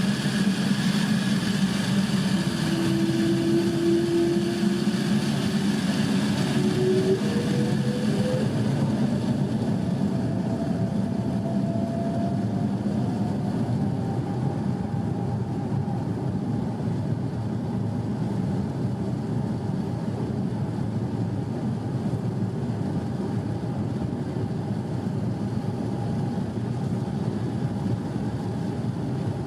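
Airbus A350-900's Rolls-Royce Trent XWB jet engines: a steady rushing rumble with a whine that climbs in pitch over the first dozen seconds or so, then holds steady.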